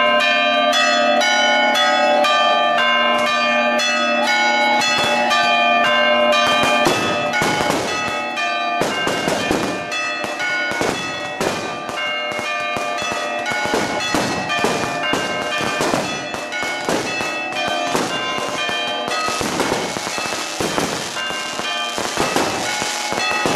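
Church bells ringing in rapid, continuous peals for the Easter Resurrection. From about seven seconds in, fireworks and firecrackers bang and crackle over the bells.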